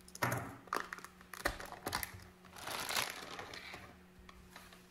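Clear plastic bag around a spool of ABS 3D-printer filament being slit with a utility knife and pulled off, crinkling and rustling, with a few sharp clicks and taps.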